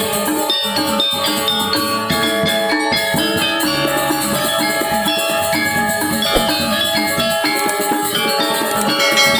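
Balinese gong gamelan ensemble playing a tabuh: bronze metallophones struck in fast, dense patterns with drums underneath, at a steady loud level.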